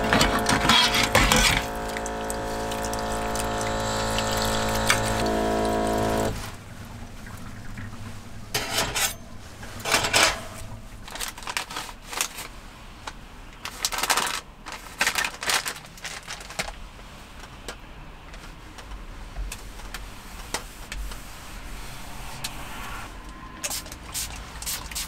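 Dishes rinsed at a small sink: running water with a steady motor hum from the faucet's pump, which cuts off suddenly about six seconds in. Then scattered light rustles and clicks as a packet of wet tissues is handled.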